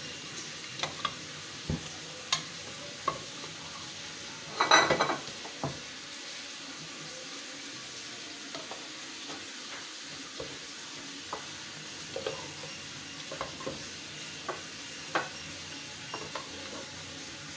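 A slotted spatula scraping and tapping against an aluminium pot and a glass bowl as cooked tinda curry is dished out. The strokes come at irregular intervals over a faint steady hiss, and the loudest, longest scrape comes about five seconds in.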